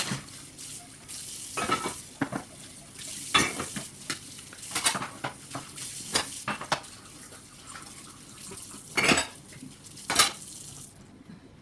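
Kitchen work: pans and utensils clinking and knocking again and again over a steady hiss, which cuts off about a second before the end.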